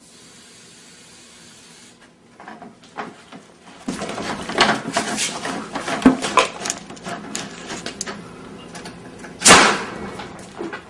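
Homemade PVC potato cannon firing with one loud bang near the end, after several seconds of scattered clatter and knocking.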